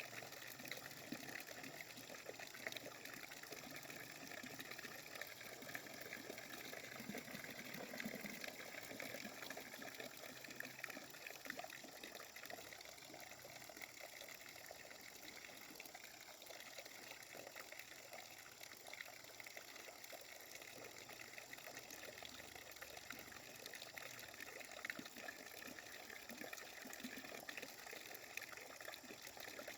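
Water running and splashing steadily: a continuous trickle and patter with many small splashes.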